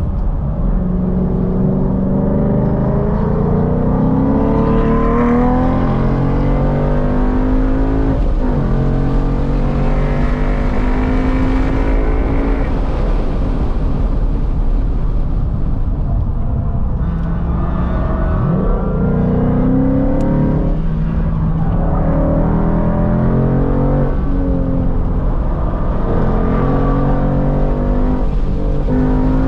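Ford Mustang's engine heard from inside the cabin while lapping a track at speed, its pitch climbing under acceleration and dropping back several times as the driver shifts and lifts for corners, over steady road and wind noise.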